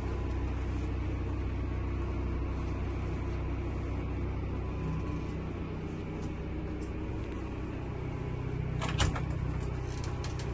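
Steady low rumble inside a motorhome's cabin, with a single sharp knock about nine seconds in.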